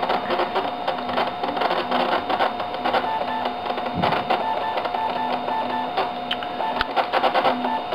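Computer working hard while the Mac OS X installer prepares from its disc: the drives whir steadily with rapid mechanical clicking and seeking.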